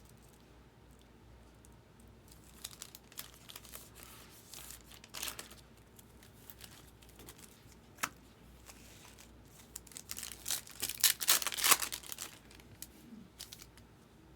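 Foil wrapper of a baseball card pack being torn open and crinkled in the hands, in scattered short crackles that are loudest and thickest about three-quarters of the way through.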